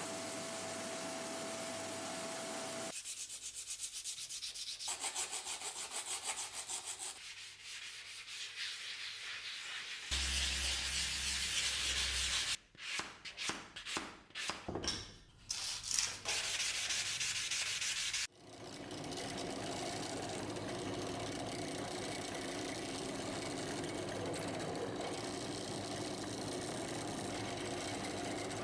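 Sanding and rubbing on a knife part in several abrupt takes: quick back-and-forth strokes first, then a louder stretch with a low hum that breaks into short stop-start bursts, and after that a long steady rubbing.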